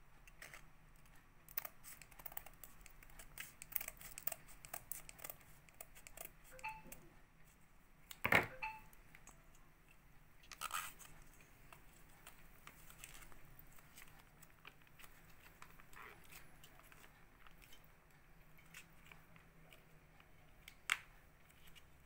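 Foil pouch crinkling and rustling as it is handled and opened over a steel bowl, with a run of small crackles in the first several seconds and a few sharp clicks, the loudest about eight seconds in.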